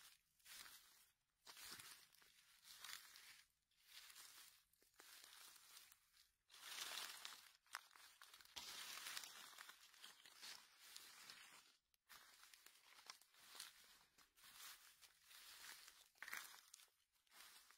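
Faint crackling rustle of dry fallen leaves in short bursts, about one every second, louder for a few seconds in the middle, as a gloved hand moves through the leaf litter and cuts mushrooms free with a knife.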